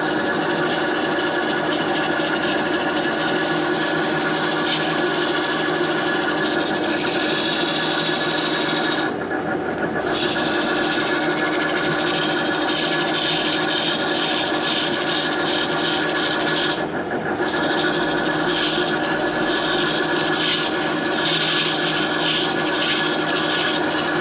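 Lathe running with a steady hum while a tool rubs against the spinning wood-and-epoxy workpiece, a rough scraping hiss. The scraping breaks off briefly twice, about nine and seventeen seconds in.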